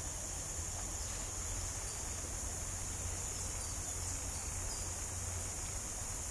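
Steady, high-pitched chorus of insects trilling without a break, over a low hum.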